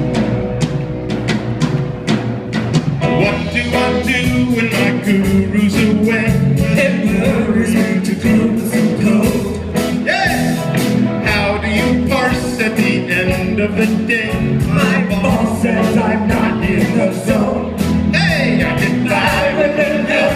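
Live rock band playing, with electric guitar over a steady drum beat, and vocals coming in about three seconds in.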